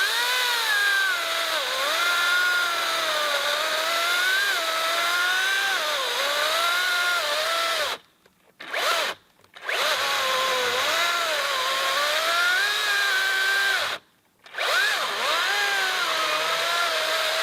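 Makita XCU04 36V cordless electric chainsaw cutting through a pine log: a steady motor-and-chain whine that sags and recovers in pitch as the cut loads it. It stops briefly three times and starts up again.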